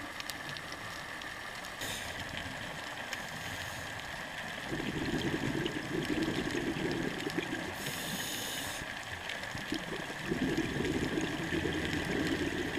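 Scuba diver breathing through a regulator underwater: a short hiss of inhaled air about two seconds in and again about eight seconds in, and exhaled bubbles gurgling for a few seconds from about five seconds in and again from about ten seconds in.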